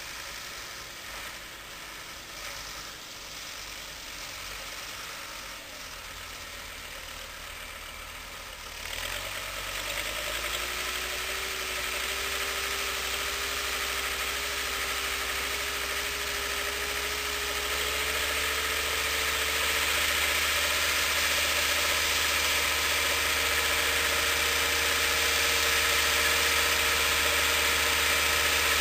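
SAME Laser 100 tractor's diesel engine working under load as it pulls a disc plough through the soil. The engine is faint at first, grows clearly louder about nine seconds in as the tractor comes closer, and keeps rising toward the end.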